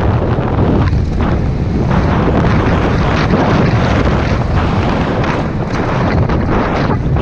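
Heavy wind buffeting on a helmet-mounted camera's microphone as a downhill mountain bike runs fast over a rough gravel track, with the rumble and knocking rattles of the bike over the bumps.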